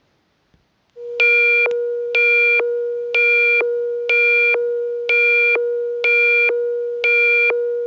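Electronic emergency alert tone: a steady low drone with a higher, buzzy beep pulsing about once a second over it. It starts about a second in and sounds ahead of the next emergency bulletin.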